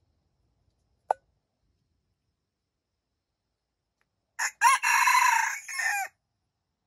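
A red junglefowl cock crowing once, under two seconds long: two quick opening notes and then a longer drawn-out part. About a second earlier there is a single short click.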